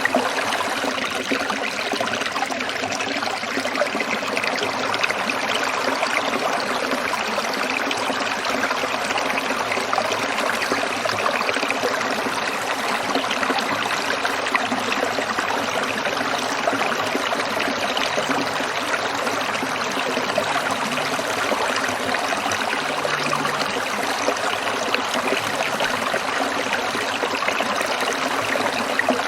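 Small stream trickling over rocks: a steady, even babble of running water.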